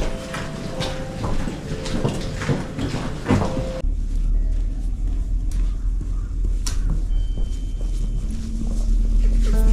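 Footsteps and knocks on a station platform with a few short tones mixed in. About four seconds in this gives way to wind rumbling on the microphone over scattered footsteps in snow, with a short held tone near the end.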